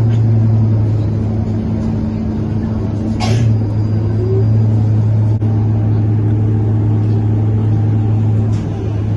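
Scania K230UB bus heard from inside while moving: a loud, steady, low drone from its radiator cooling fan over the engine and road noise, with a short hiss about three seconds in.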